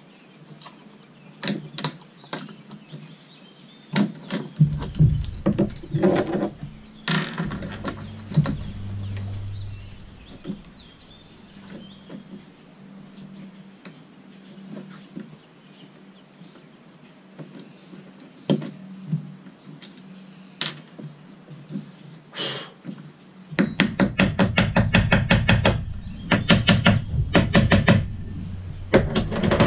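Bolts and small metal hardware being taken off the hard-top mounting plates: scattered clicks and clinks of metal parts, then a quick run of even clicks for about five seconds near the end.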